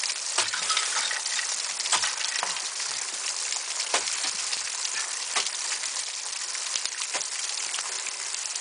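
Water from the unfrozen part of a frozen waterfall falling and spraying steadily over the climber, like heavy rain, with a sharp knock every second or two.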